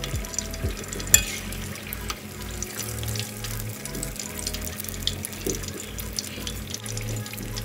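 Egg rolls deep-frying in hot oil: a steady crackling sizzle, with one sharp click about a second in.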